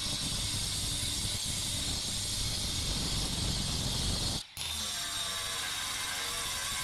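Angle grinder with a cutoff disc running steadily as it cuts through the steel tube of a shopping cart's base, a continuous hissing whine. It drops out for an instant about four and a half seconds in, then carries on unchanged.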